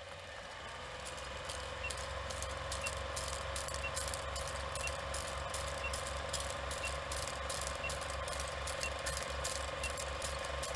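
Film projector sound effect: a steady, rapid mechanical clatter over a low throbbing hum, with a faint short tick about once a second, as for a film countdown leader.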